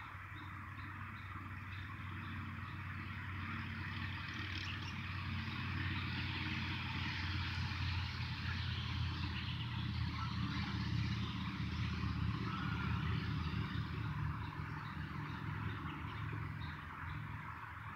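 A vehicle's engine passing at a distance, growing steadily louder to a peak about halfway through and then fading away.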